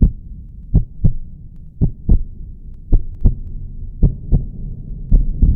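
Heartbeat sound effect: evenly spaced low double thumps, lub-dub, about once a second.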